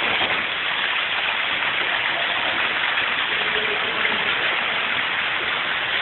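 Loud, steady rushing noise without pauses or surges.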